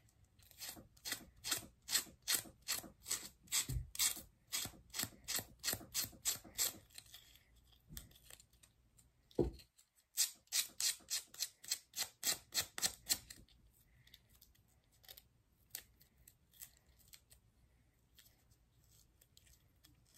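Rapid scraping strokes of a file rasping grip tape along a fingerboard deck's edge to trim off the excess, about three strokes a second. The strokes come in two runs, the first about six seconds long and the second about three, with a dull knock between them. Lighter scattered scratches follow near the end.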